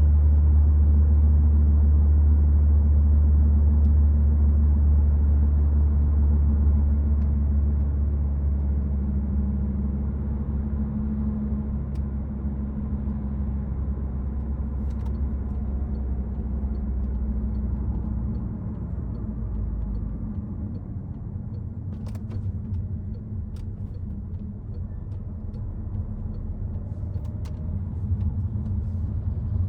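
Citroen C5 Aircross driving in city traffic: a low, steady road and engine rumble that eases off about two-thirds of the way through. In the second half there is a faint, regular ticking and a few light clicks.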